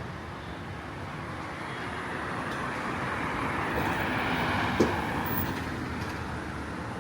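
A road vehicle passing by: a steady rush that swells to its loudest about four to five seconds in and then fades, with a single short knock near its peak.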